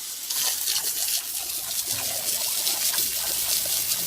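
Water running steadily, a continuous trickling rush.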